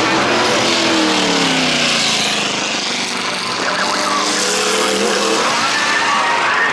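Racing car engine at speed: its note drops over the first couple of seconds, then climbs again about four seconds in.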